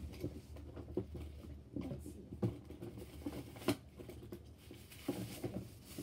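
Fidget toys being rummaged through in a plastic storage bin: scattered clatters and knocks, two sharper ones about halfway through.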